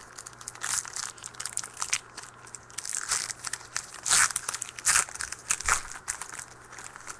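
A trading-card pack's wrapper being torn open and crinkled by hand, in irregular crackly rustles, the loudest about four and five seconds in.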